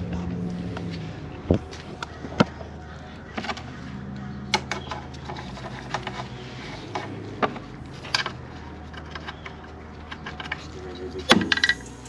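Hand tools and metal suspension parts clinking and clanking irregularly, with a few louder knocks, over a steady low hum.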